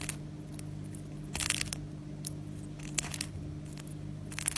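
Short crunchy scrapes of an object rubbed across a dried orange, a Foley stand-in for ice cracking. There are about four of them, with little ticks between, over a steady low hum.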